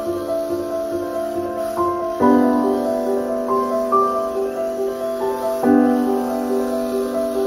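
Background piano music: a melody of single notes over held chords, with a new chord struck about every three and a half seconds.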